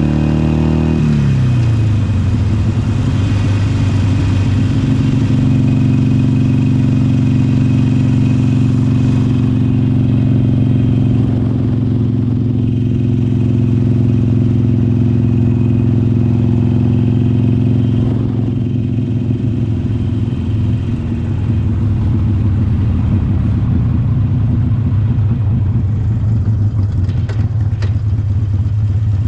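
Harley-Davidson Iron 883's air-cooled V-twin running under way on the road. The revs drop in the first second and then hold steady, easing off briefly about two-thirds through before settling back.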